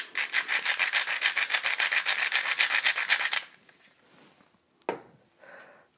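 Hand salt grinder being twisted, grinding salt with a rapid, even grating rhythm for about three and a half seconds, then stopping; a single light click follows near the end.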